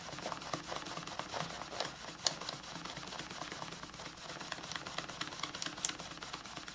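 Paper towel rubbed back and forth over a vinyl meter bag, a soft, irregular scratchy scrubbing with small ticks and one sharper click about two seconds in.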